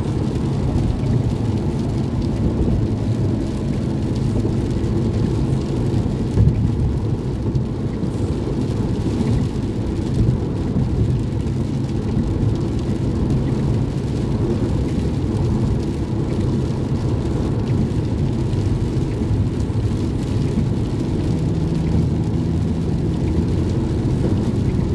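Steady road noise heard from inside a car driving on a rain-soaked freeway: a low, even rumble of engine and tyres on wet pavement, with a hiss of rain and spray.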